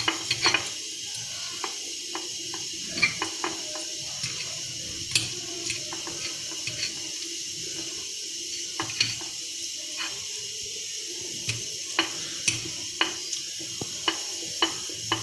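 A fork clicking and scraping against a dish in scattered light taps while cooked chicken is shredded, over a steady hiss.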